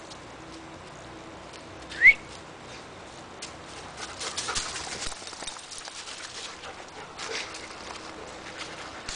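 Footsteps crunching and crackling through dry leaves and twigs on a woodland dirt trail, coming in uneven clusters. About two seconds in, a single short rising chirp or whistle stands out as the loudest sound.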